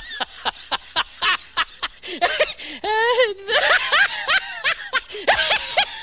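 A person laughing hard in a quick run of short "ha" bursts, with one longer wavering squeal about three seconds in before the laughter picks up again.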